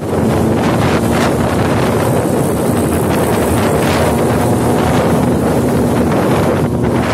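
Motorcycle riding at speed, its engine running at a steady note under heavy wind buffeting on the microphone.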